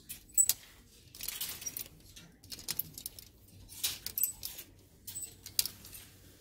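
Clear plastic clip hangers with metal hooks being pushed along a metal clothing rail, giving an irregular string of sharp clicks and short scrapes as they knock together and slide.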